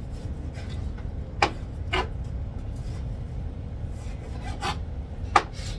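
Kitchen knife slicing raw beef on a cutting board, with four sharp knocks of the blade against the board, the loudest near the end, over a steady low rumble.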